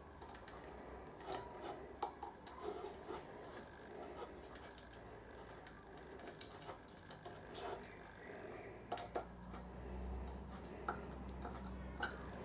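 Faint small clicks and scrapes of a screwdriver and a crimped fork terminal being worked into an inverter's screw terminal block as the neutral wire is fitted. A low hum comes in after about nine seconds.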